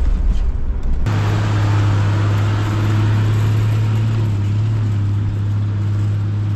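Toyota LandCruiser 75-series Troop Carrier driving on a dirt track: a low engine and road rumble for the first second, then an abrupt change to a steady, even engine hum with the noise of tyres on the dirt.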